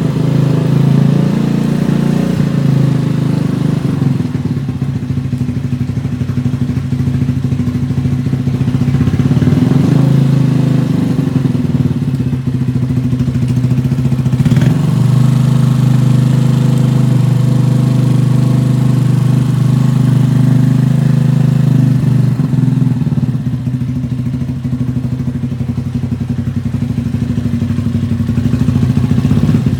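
Cafe racer motorcycle's Lifan four-stroke engine running steadily at a low, even speed, its pitch shifting only slightly, with one brief click about halfway through.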